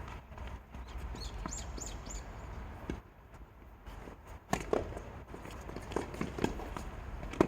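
Tennis court activity: scattered footsteps and knocks of play, with a few short high chirps about a second in and a sharp strike, the loudest sound, near the end.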